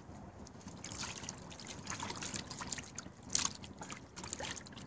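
Water trickling and sloshing in a cast-iron kazan as it is rinsed, with scattered small clicks and one louder click about three and a half seconds in.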